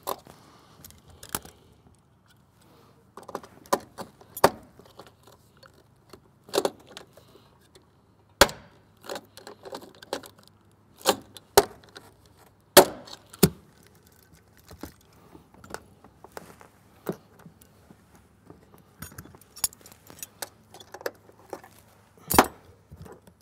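Scattered sharp metallic clicks and small rattles from fitting Cherry Max blind rivets into an airframe bracket and working them with a hand rivet puller. Single louder snaps come about eight, thirteen and twenty-two seconds in.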